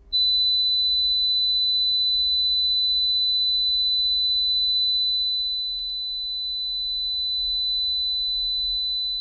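Steady 4 kHz sine test tone played through a Subaru Sambar kei truck's door speaker. It comes first from the untreated driver's door, then, after a short click about six seconds in, from the passenger door treated with a sound-deadening kit, where it is slightly quieter.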